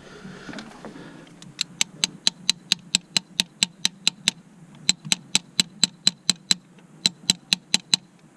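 Rapid light metallic taps, about five a second in runs with short pauses, as a 10mm socket is tapped to try to seat it on a glow plug's head; the socket is too thick to go on.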